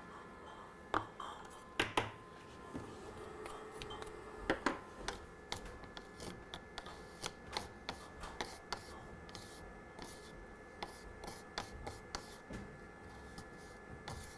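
A few knocks as ground coffee is tipped from a paper cup into a plastic sample dish, then a metal straightedge scraping and tapping across the ground coffee in many short strokes, levelling it for a colour reading.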